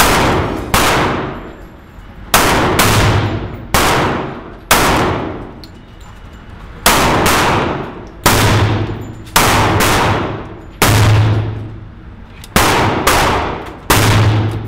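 Kimber Ultra Carry II .45 ACP pistol fired shot after shot, about ten single shots at uneven intervals of roughly one to two seconds, each echoing out in the indoor range.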